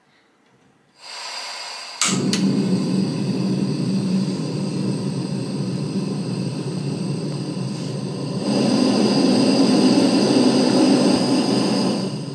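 Snow Peak Baja Burner gas stove: the valve opens with a soft hiss about a second in, two clicks sound as it lights about two seconds in, and the burner flame then burns with a steady rushing hiss. The hiss grows louder about eight and a half seconds in and eases off near the end as the valve knob is turned down.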